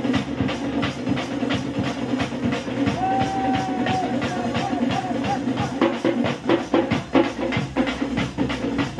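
A group of barrel drums played in a fast, steady beat for a masked dance. A single high note is held for about a second around three seconds in.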